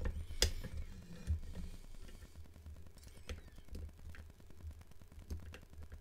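Faint, sparse metallic ticks and clicks of a pick and tension tool working the levers of a Fichet lever safe lock, with one sharper click about half a second in, over a steady low hum.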